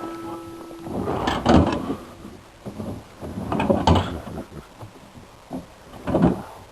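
A heavy log being rolled and shoved off a load: three loud bouts of wooden knocking and scraping, about one, four and six seconds in.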